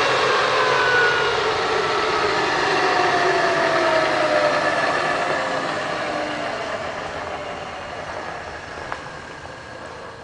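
Small SG18 gas-turbine engine spooling down: a whine of several tones that slowly falls in pitch, over a rushing hiss, the whole sound fading steadily as the turbine winds down. A single faint click comes near the end.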